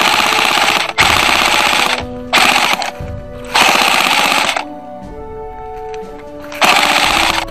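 Airsoft rifle firing on full auto: five bursts of rapid shots, the fourth the longest at about a second. Music plays underneath.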